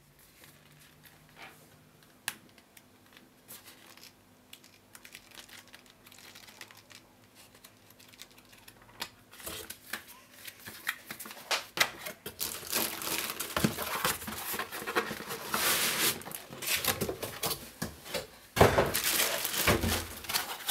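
Cardboard box and packaging being handled: faint paper and box rustles at first, then white foam packing blocks pulled and rubbed out of the box, the rustling and scraping growing louder from about ten seconds in. A heavier bump comes near the end.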